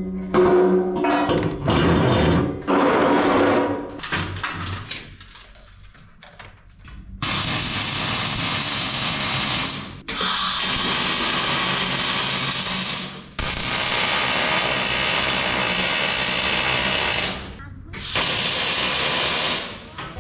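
Metalworking power tools at work on steel: four long bursts of harsh hiss, each a few seconds long with short pauses between, over background music.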